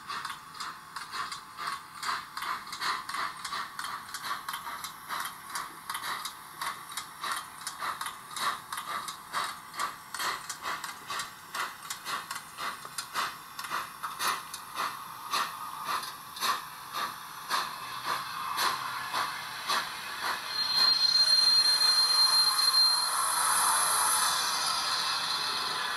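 Sound decoder of a Roco H0 DR class 93 model steam locomotive (ESU LokSound V5 micro) playing steady exhaust chuffs that come further apart as the engine slows. About three-quarters of the way through, a louder steam hiss sets in with a thin, high, steady squeal for a couple of seconds as the engine comes to a stop, and the hiss then fades.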